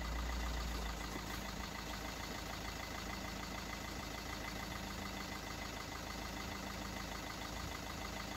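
A steady mechanical hum, like an engine idling, with a constant high whine over it and a deeper rumble in the first second.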